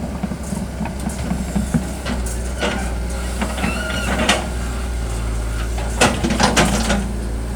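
Hitachi hydraulic excavator's diesel engine running steadily, with several wooden knocks as logs are handled and stacked, a cluster of them about six seconds in.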